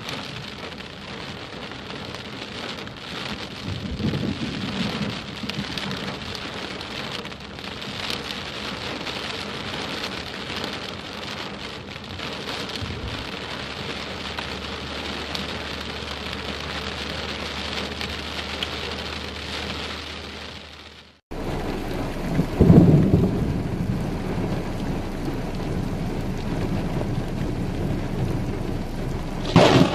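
Heavy rain drumming on a car's windscreen and roof. About two-thirds of the way through, after a sudden cut, a loud thunder rumble breaks over the steady rain, and another sharp thunderclap comes near the end.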